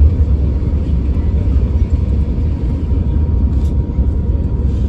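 Inside the cabin of an Airbus A350-900 rolling along the ground: a steady, loud low rumble from its Rolls-Royce Trent XWB engines and the ground roll, with a faint steady whine over it.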